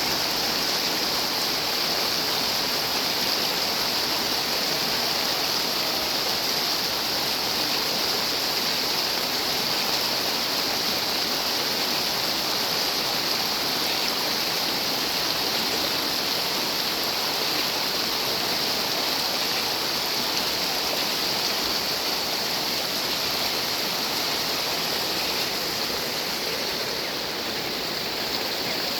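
Steady, unbroken rush of water in heavy rain, an even hiss with no let-up.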